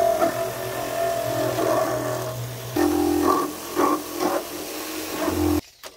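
Handheld electric power tool's motor running steadily, then dropping in pitch about three seconds in as it takes load on a plastic milk crate, and stopping suddenly near the end.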